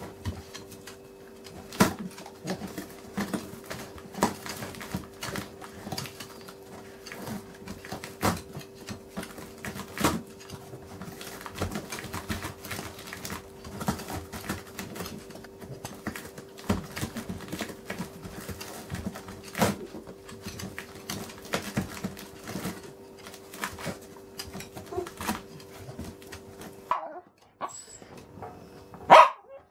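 A dachshund biting and ripping at a cardboard box with its teeth: irregular crackling, tearing and sharp snaps of cardboard, which stop shortly before the end.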